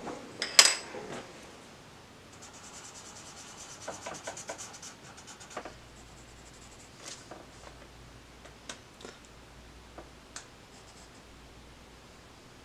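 Pencil scratching on sketchbook paper in short strokes, a scratchy run of shading for a couple of seconds, then scattered light ticks of the pencil point. A single sharp knock, the loudest sound, comes about half a second in.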